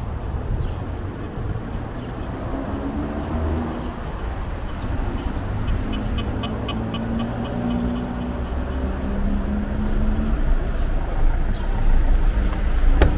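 Town street ambience: a steady low rumble of cars running along the street, getting somewhat louder near the end. About six seconds in there is a short, rapid run of high chirps.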